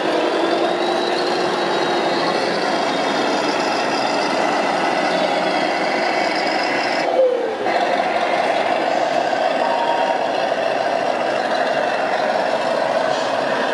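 RC model trucks and an excavator working a dirt site, their sound units giving a steady din of simulated truck engine running with held tones like reversing beeps, briefly broken about seven seconds in.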